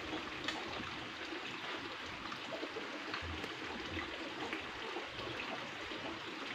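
Steady rush of running water in the background, with a few faint ticks.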